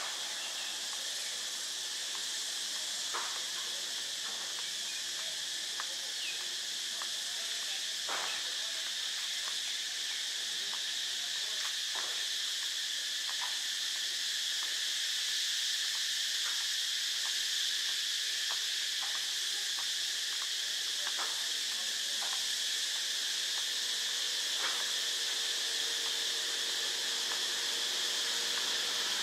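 Steady, shrill chorus of insects buzzing, with scattered faint clicks. A low engine hum of an approaching vehicle creeps in near the end.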